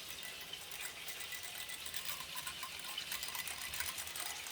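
A whisk beating a runny mixture in a bowl, with a quick, uneven run of light clicks and liquid swishes.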